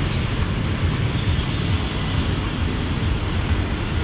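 Steady outdoor city ambience: a continuous low rumble under an even hiss, with no distinct single event.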